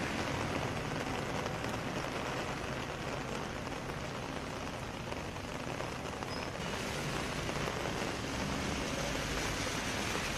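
Heavy rain pouring down and splashing into standing water on a waterlogged street, a steady hiss of drops.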